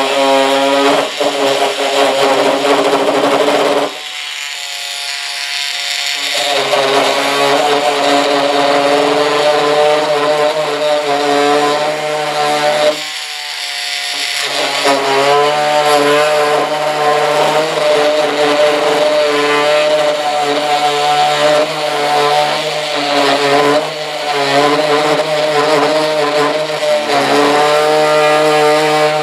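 Handheld power tool running steadily as it cuts through the tail cone of a model jet's fuselage, a pitched motor buzz. The sound thins out and drops in level twice, at about 4 seconds and again at about 13 seconds, before returning to full.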